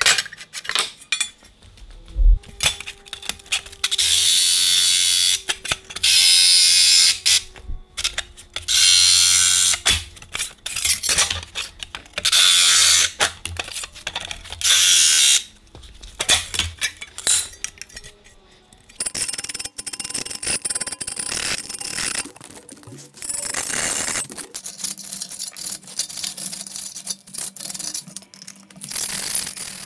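Cordless jigsaw cutting thin aluminum sheet in several bursts of a second or two each, with clinks of the metal sheet being handled between cuts.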